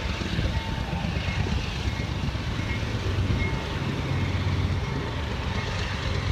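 Steady low rumble of a CSX freight train's diesel locomotives, with a faint high ding repeating about every three quarters of a second.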